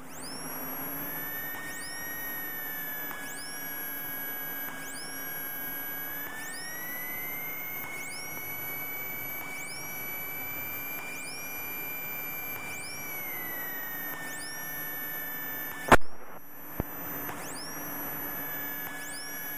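Electrical interference in the Cessna 172's cockpit audio feed: a steady electronic whine that slides up in pitch, holds and comes back down. Over it a short rising chirp repeats about once a second, a pattern typical of anti-collision strobe noise in an aircraft intercom. A loud click comes about sixteen seconds in.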